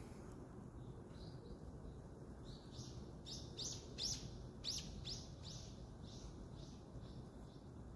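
A small bird chirping: a quick run of short high chirps, about three a second, loudest in the middle and fading near the end, over a low steady background hum.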